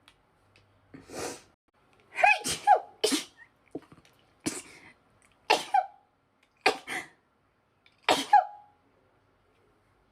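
A woman's sneezing fit: a rapid run of about seven sneezes, several coming in quick pairs, each with a short voiced tail falling in pitch.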